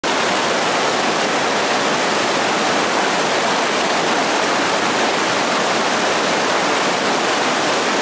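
Fast-flowing stream rushing over rocks in shallow rapids: a steady, even rush of water.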